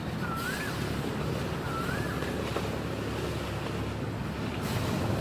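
Steady low rumble of canal taxi boats' engines mixed with wind buffeting the microphone. A bird gives a short rising-and-falling whistle twice in the first two and a half seconds.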